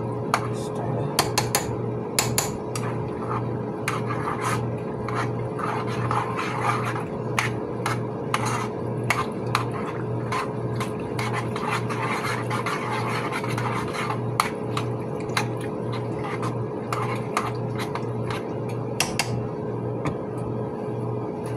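Kitchen utensil scraping and clinking irregularly against cookware while food is mixed, over the steady hum of a kitchen exhaust fan.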